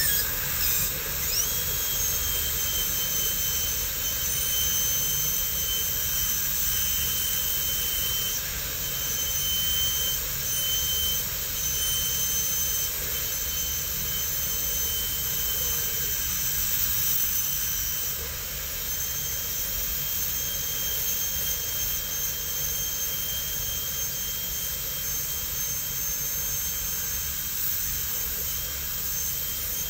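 High-speed air-turbine dental handpiece whining steadily as its bur grinds down the walls of a plastic typodont tooth for a crown prep, with the hiss of its water spray. The whine rises to pitch about a second in, then holds.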